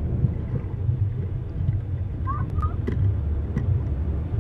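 Low rumbling water noise heard through an underwater camera while snorkelling, with scattered sharp clicks and a few brief high squeaks a little over two seconds in.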